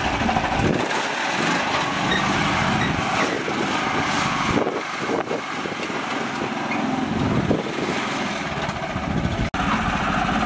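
Mini tractor's small engine running steadily as it pulls a loaded trailer over rough, muddy ground, briefly cutting out once near the end.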